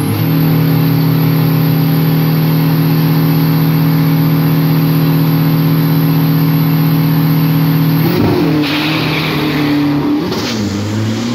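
Drag-racing pickup truck's engine held at a steady high rev on the start line for about eight seconds. The truck then launches, and the engine note changes and falls away as it runs down the strip.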